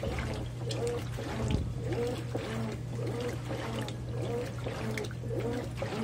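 Consul 13 kg top-load washing machine agitating a load of towels in water: a steady motor hum, a whirring that rises and falls about twice a second, and water sloshing.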